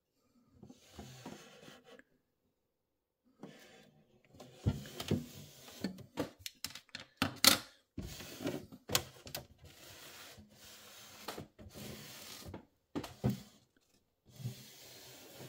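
Handling noise of a model shipping-container display case being moved and turned on a desk mat: rubbing and scraping with irregular clicks and knocks, the sharpest about seven seconds in.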